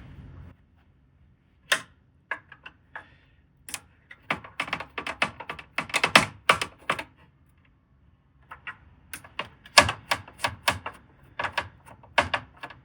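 Rapid, irregular clicks and taps of a screwdriver and small screws being worked on the Akai MPC 60's chassis and circuit boards, in a dense run in the middle and another near the end.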